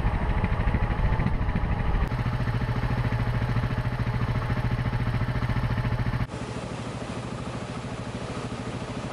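Single-cylinder engine of a Husqvarna TR650 Terra enduro motorcycle running as it rides down a rough gravel mountain track, with a steady rapid pulsing. The sound cuts abruptly a couple of times and drops in level about six seconds in.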